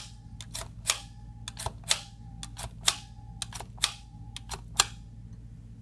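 Jaccard Meat Maximizer handheld blade tenderizer pressed again and again into a raw chicken breast, clicking sharply with each press and release: loud clicks about once a second, fainter ones between.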